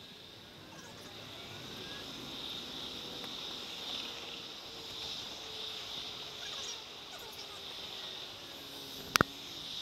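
Tram running along its track, played back at triple speed, so its running noise comes out as a high hiss with faint sliding whines drifting through it. A single sharp click about nine seconds in is the loudest sound.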